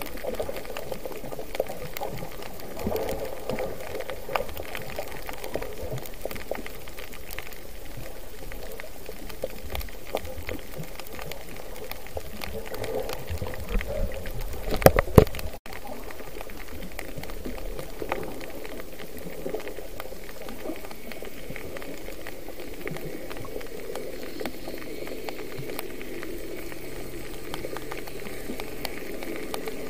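Underwater sound through an action camera's waterproof housing: a steady muffled water noise with scattered crackles and clicks. About halfway through it swells into louder bubbling and rushing, then cuts off suddenly.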